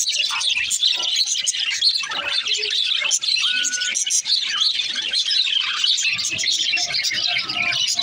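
Several budgerigars chattering and warbling without a break, a dense stream of chirps, short whistled notes and clicks.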